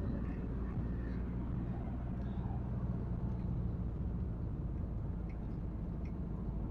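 Car driving along a road: a steady low rumble.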